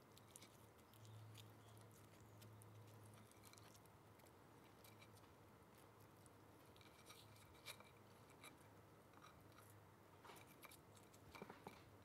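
Near silence: a faint low hum and scattered soft clicks of wooden chopsticks on a ceramic plate while picking at grilled mackerel.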